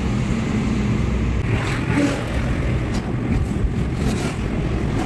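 Steady low rumble of engine and road noise heard from inside a moving car's cabin.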